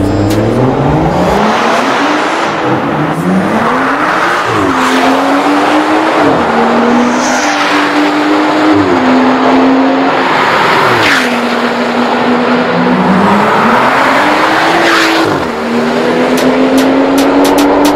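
BMW 340i's turbocharged 3.0-litre inline-six, breathing through a catless downpipe and a valved Fi Exhaust catback, accelerating hard. Its pitch climbs and drops back again several times as it shifts up through the gears.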